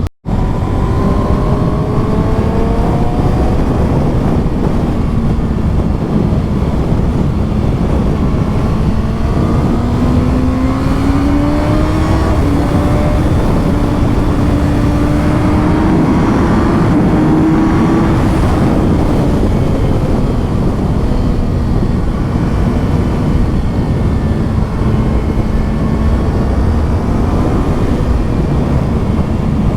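2020 Kawasaki ZX-6R's 636 cc inline-four running on its stock exhaust while riding, the engine note climbing and easing off with the throttle over a constant rushing noise. A brief dropout right at the start.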